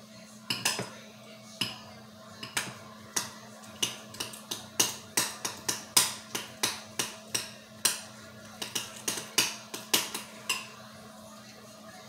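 A metal utensil clinking and scraping against a glass mixing bowl while deviled-egg filling is stirred: irregular sharp taps, about two to three a second, stopping about ten and a half seconds in.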